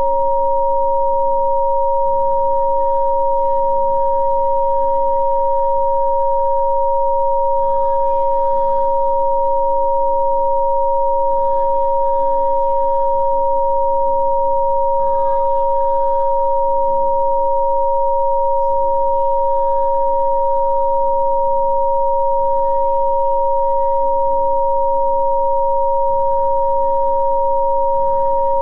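Two steady electronic pure tones, one lower and one a little under an octave higher, held unchanging as Rife frequency-therapy tones. A much fainter, soft background layer shifts beneath them every few seconds.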